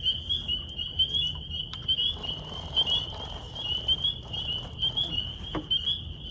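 A chorus of frogs calling steadily, an even high-pitched trilling, with a low rumble underneath and a couple of faint knocks.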